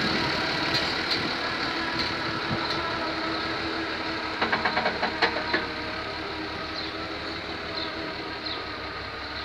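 Diesel engine of a Fiat Agri 980 DT tractor running steadily while it works a loader, growing fainter as the tractor moves away. About halfway through comes a quick run of sharp knocks.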